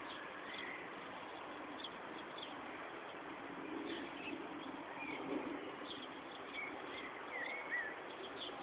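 Small birds chirping, with short high calls and quick whistled glides scattered throughout, over a steady background hiss.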